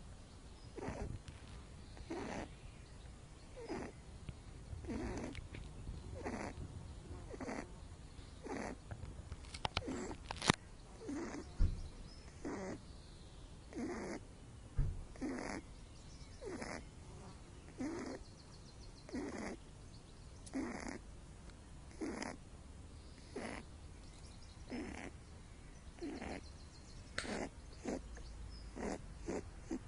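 Pet rabbit snoring in its sleep, one short snore about every second and a half in a steady rhythm.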